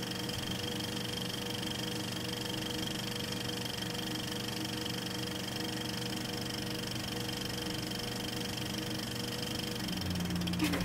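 Steady mechanical whir and hum of an 8mm film projector running, with a constant high whine over it; a deeper hum joins near the end.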